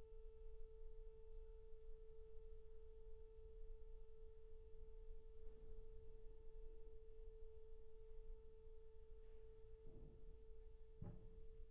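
A single soft, pure-sounding orchestral note held perfectly steady, with a couple of faint knocks near the end.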